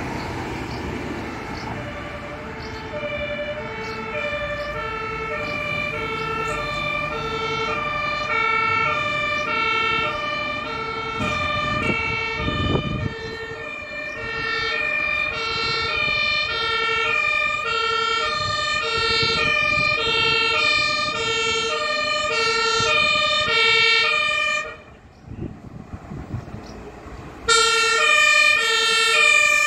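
German two-tone fire engine siren (Martinshorn) sounding a steady alternating low-high call as the fire engine approaches on an emergency run. A car passes about halfway through. The siren drops away for a couple of seconds near the end, then comes back louder.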